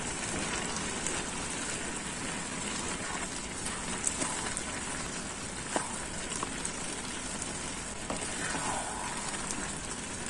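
Gajar ka halwa (grated carrots with khoya) sizzling in a pan over high flame as it is stirred with a wooden spatula. Juices from the carrots and sugar are cooking off, and the spatula knocks lightly on the pan a couple of times.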